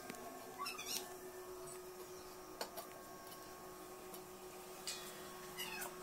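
A cat meowing, faintly, about a second in and again near the end, with a few light clinks of steel kitchenware in between.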